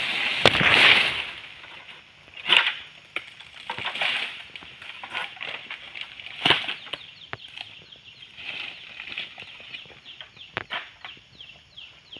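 Oil palm fronds rustling and scraping as a long harvesting pole works in the crown of the palm, with a loud rush of leaves about half a second in and sharp knocks every few seconds. Faint quick high ticks run through the second half.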